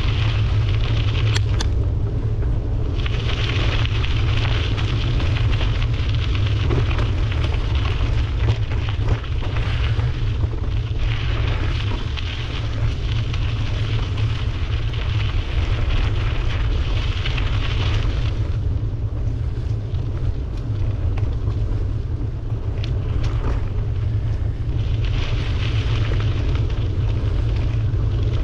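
Wind buffeting a camera microphone on a moving bicycle: a constant heavy rumble, with a higher hiss that swells and fades every few seconds.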